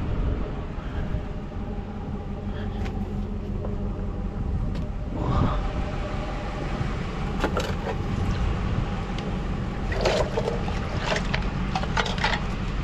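A steady low engine-like hum, with a few short clicks and clatters in the second half.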